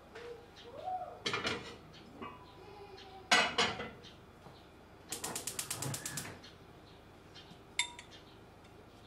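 A ceramic casserole set down on a gas stove's burner grate with a sharp knock, followed by a fast, even run of clicks, about ten a second for a second, from the burner's igniter being lit. Smaller knocks and clinks come before and after.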